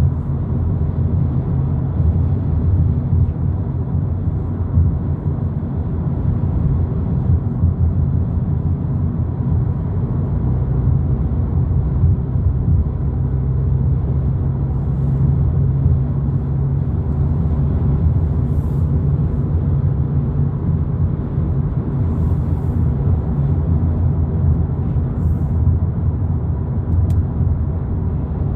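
Steady low road and engine rumble inside the cabin of a 2022 Volkswagen Polo GTI cruising on a freeway.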